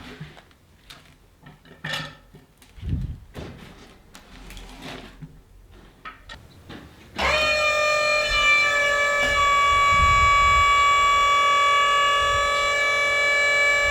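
Scattered light knocks and clinks, then about seven seconds in a loud held chord of many steady tones, like a sustained organ or synth drone, starts abruptly and holds without change.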